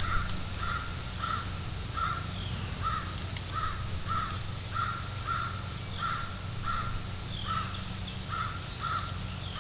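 A crow cawing over and over, about a caw and a half a second, with a short pause near the end.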